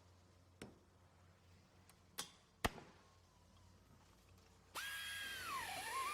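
A few sharp knocks of tools handled on a workbench, then, about two-thirds of the way in, a small electric power tool starts with a high whine that drops in pitch and recovers as it bogs under load.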